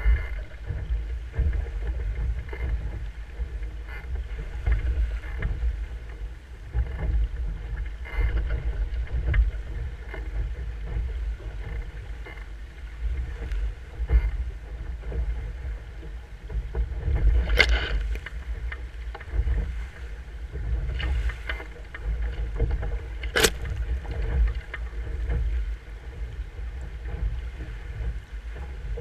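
Wind buffeting the microphone and water rushing along the hull of a Musto Skiff sailing fast downwind under spinnaker through chop, with two sharp slaps of water against the boat in the second half.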